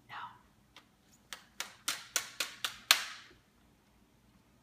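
A short breathy sound, then a quick run of about seven sharp clicks, about four a second, growing louder to the loudest near three seconds in.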